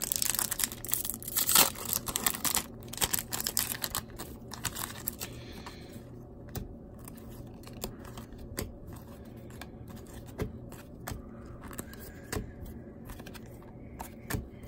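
A foil pack of 1994 Donruss Triple Play baseball cards crinkling as it is torn open, loudest about a second and a half in. From about six seconds in, only scattered sharp clicks as the cards are slid and flicked through one by one.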